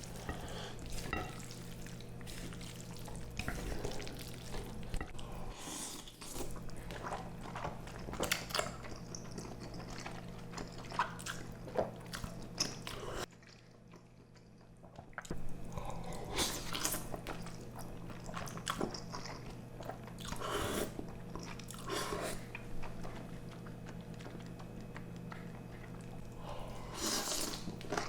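Close-miked eating sounds: chewing, slurping and biting of a stew of octopus, beef tripe, shrimp and noodles, with irregular small clicks and wet smacks, over a steady low hum. The sound drops out briefly about halfway through.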